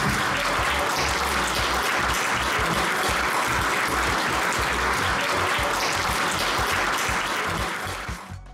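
A large audience applauding, a dense steady clapping that dies away near the end.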